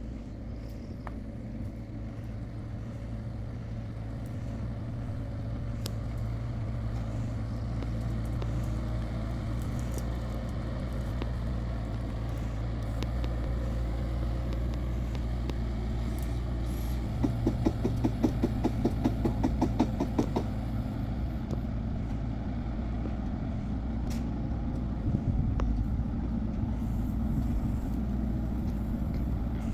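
Backhoe's diesel engine running steadily at work. For a few seconds past the middle comes a quick run of rattling knocks, about five a second.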